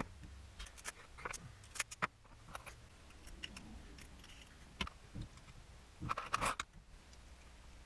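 Scattered light clicks, taps and clatter of skateboard parts and tools being handled while a board is assembled, with a short busier patch of rattling about six seconds in.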